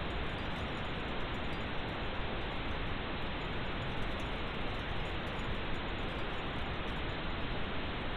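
Steady, unchanging pink noise: an even hiss with no tones or breaks.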